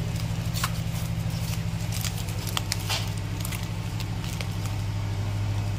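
Kite-string reel spool spinning by hand: a steady low hum with scattered light clicks and rattles.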